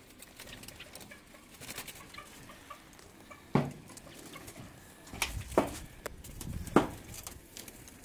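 Light rustling and small ticks, then four sharp knocks in the second half, the last three close together with some low rumbling around them.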